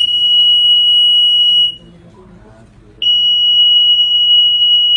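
Emergency broadcast alert tone: a single steady high-pitched electronic tone, held, breaking off for about a second and a half partway through, then sounding again.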